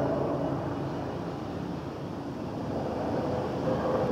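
Police helicopter flying overhead in the dark, its rotor and turbine giving a steady drone.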